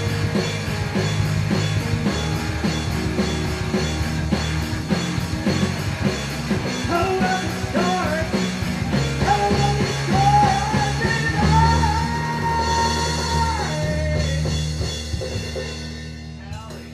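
Live rock band playing: drum kit, electric guitars and keyboards. A held melodic lead line with bending notes rises over the band in the second half, and the sound dies away near the end as the song closes.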